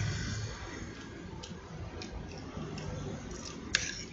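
Metal spoon and fork clicking against a ceramic plate while scooping fried rice: a few faint taps, then one sharper clink near the end. A low hum fades out about half a second in.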